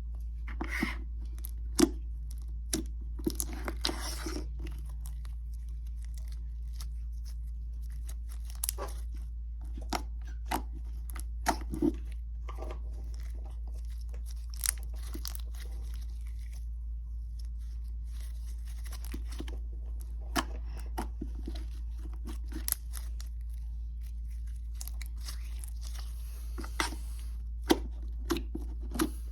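Hands squishing, stretching and tearing slime, with scattered short sticky pops and clicks.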